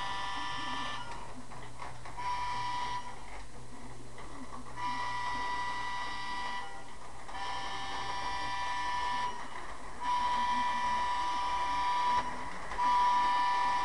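O gauge model train whistle blowing in repeated blasts of one to two seconds each, about five or six in all with short gaps between, over a steady low hum.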